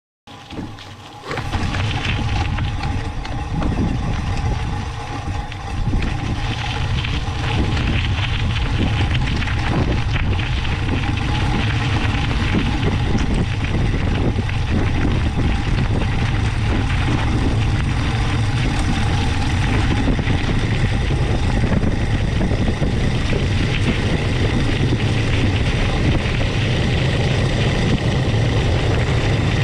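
Mountain bike tyres crunching over gravel while wind buffets the GoPro's microphone, a steady low rumble with a dense crackle of small stones. It starts abruptly just after the beginning and grows louder about a second in.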